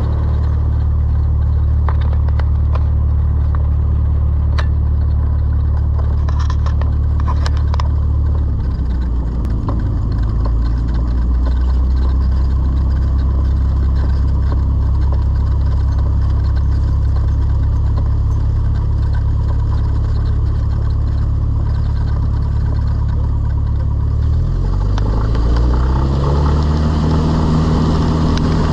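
Cessna 172's piston engine and propeller running steadily at low taxi power, with a few light clicks and rattles in the first several seconds. About 24 seconds in, the engine speeds up smoothly and holds a higher, steady note.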